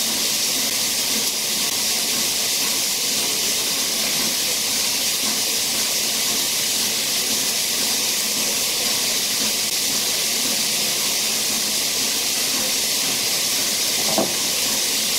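Steady, loud hiss of steam escaping from the Peppercorn A1 Pacific steam locomotive 60163 Tornado as it stands in the station.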